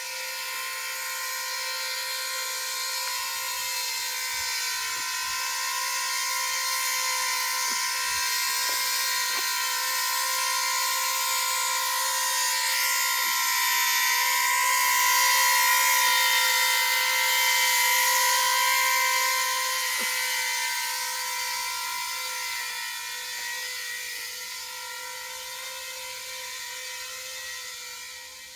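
Electric coaxial copter in flight, its two counter-rotating rotors and motors whining steadily at a constant pitch. The whine grows louder toward the middle and eases off near the end.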